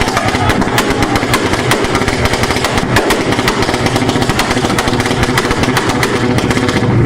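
A car's exhaust firing a fast, unbroken string of pops and bangs while the engine is held on a two-step launch limiter; the bangs stop near the end.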